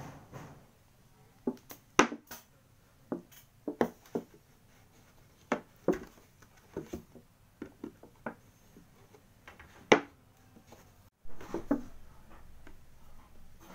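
A screwdriver tip punching holes in a thin clear plastic container: scattered sharp plastic clicks and cracks at irregular intervals, two of them much louder than the rest.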